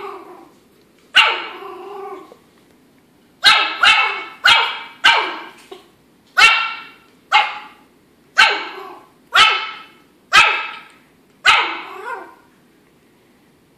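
An 11-week-old Yorkshire Terrier puppy barking: about a dozen sharp, high-pitched yaps roughly a second apart, with a quicker run of four around four seconds in. Each bark rings briefly off the hard tile floor.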